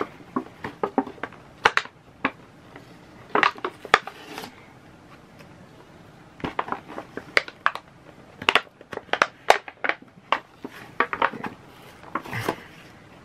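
Product packaging being handled and opened, crinkling and clicking in short, irregular bursts.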